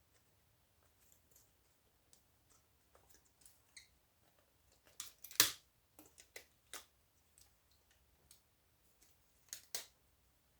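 Scattered sharp clicks and snips of hand cutters and parts being handled while electronic scrap is stripped, with the loudest snip about five seconds in and another near the end.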